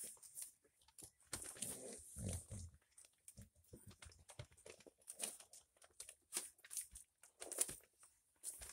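Newspaper bedding crinkling and rustling in irregular bursts under crawling puppies' paws, with a low puppy grunt about a second and a half in.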